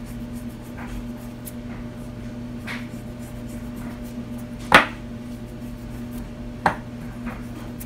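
Light clicks and taps of hands and a seasoning shaker against a plate while raw pork chops are sprinkled with salt and pepper, the sharpest about five seconds in and another a couple of seconds later, over a steady low hum.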